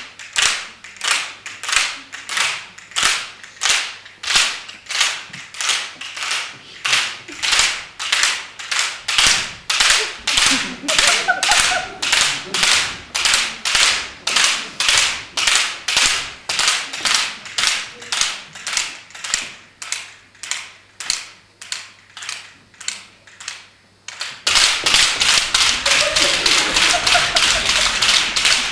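Rhythmic sharp clacks, about two a second, from hand-held bundles of thin curved slats being snapped and struck in time. Near the end the clacking turns denser and almost continuous.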